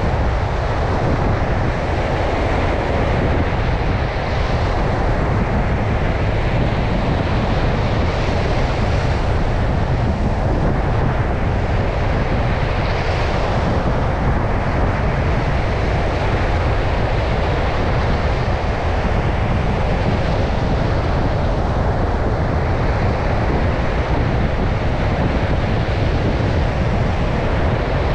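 Stormy ocean surf and strong wind: a dense, steady wash of noise, with wind buffeting the microphone and adding a heavy low rumble.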